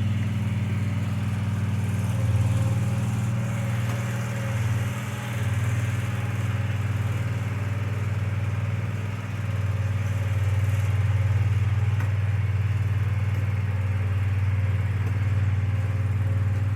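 Engine of a compact stand-up lawn mower running steadily with a low hum, dipping briefly about five and nine seconds in.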